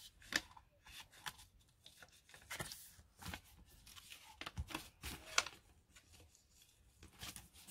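Paper being handled and glued down by hand: scattered soft rustles, light taps and scrapes of paper on the work surface.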